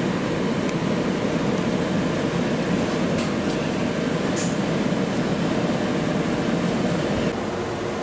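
Air-conditioning blower running steadily inside a MAX light-rail car, the retrofitted unit of a Type 1 car, heard as a broad, even rush. Near the end it cuts to the slightly quieter, steady HVAC hum of a Type 2 car.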